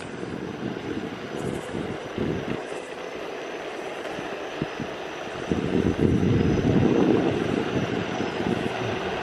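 Carbon Evolve electric skateboard rolling fast over asphalt: a steady wheel-on-road rumble mixed with rushing wind noise, growing louder about halfway through.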